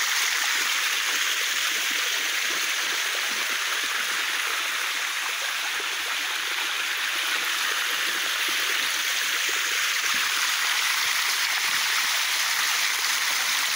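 Small waterfall and stream: water rushing in a steady, even noise with no break.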